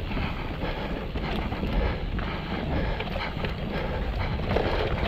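Mountain bike riding over a rough, rocky trail: tyres knocking and the bike rattling over the rocks, with wind rumbling on the microphone.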